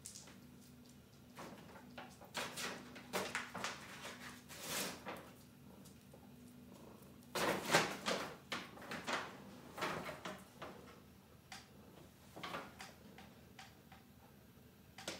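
Paper bag rustling and crinkling in irregular bursts as a cat pushes into it and shuffles underneath it. The loudest bursts come about halfway through.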